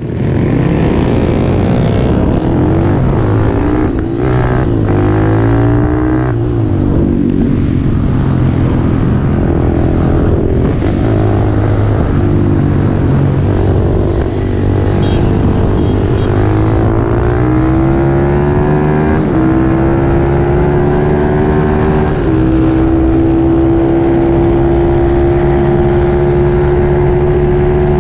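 ZS190-engined Honda CT70 mini bike's single-cylinder engine at full throttle. Its pitch climbs and drops back at several upshifts, then holds steady and high for the last few seconds.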